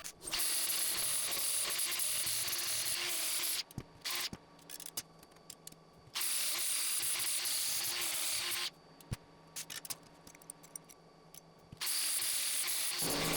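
Laser cutter cutting sheet steel, a loud hiss in three stretches of a few seconds each, with quieter gaps of scattered clicks between them.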